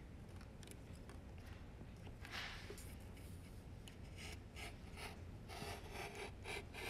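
Faint scratching of a graphite pencil drawing lines on paper along a ruler's edge, in several short scratchy strokes, most of them from about four seconds in.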